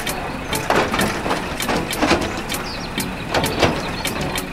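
Toy remote-control excavator working: its small geared motors grind in short, uneven spurts as the arm and bucket move, with clicking and scraping in the sand several times a second.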